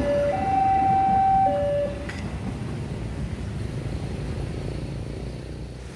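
Level-crossing warning alarm sounding two alternating tones, a higher and a lower one each held about a second, which stops about two seconds in. Underneath, the low rumble of the passing train fades as it draws away.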